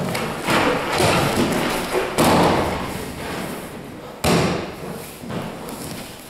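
Thuds of a body landing on the mat as the uke is thrown with kotegaeshi, the aikido wrist-turn throw, and takes a breakfall. There are sudden impacts about two seconds in and again just past four seconds.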